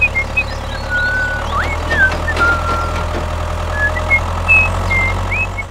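Steady low engine drone of a tractor, with short whistled chirps rising and falling over it.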